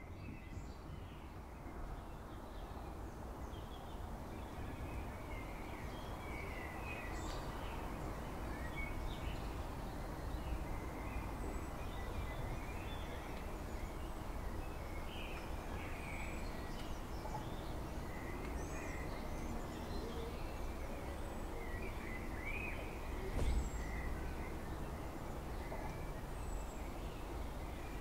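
Many birds chirping and calling against a steady rush of wind with a low rumble beneath it. A brief low thump comes about three-quarters of the way through.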